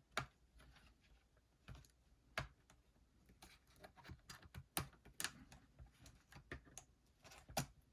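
Faint, irregular plastic clicks and taps from an HP 2000 laptop keyboard as its keys are pressed and poked to free the keyboard's retaining tabs.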